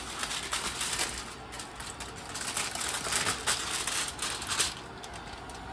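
Aluminum foil crinkling and crackling as it is peeled back off a foil baking pan, a dense run of crackles that dies down near the end.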